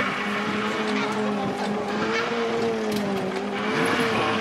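Banger racing car engine held at high revs, a steady engine note that wavers slightly in pitch over a rough, noisy wash, growing noisier about three and a half seconds in.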